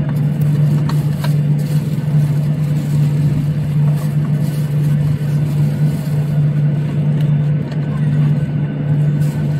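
Boeing 737-800 cabin noise in flight: a loud, steady low drone with a faint constant hum above it.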